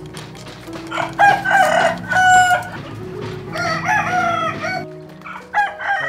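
Roosters crowing, several long crows one after another.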